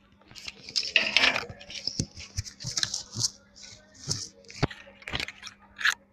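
Handling noise from a phone being moved about: irregular clicks, taps and rustling of fingers on the phone near its microphone, over a faint steady hum.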